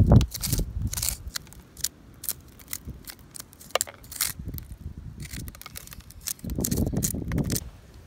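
Moss being scraped off tree bark with a blade: a run of crackling scrapes and sharp clicks, with a longer, heavier scrape about six and a half seconds in.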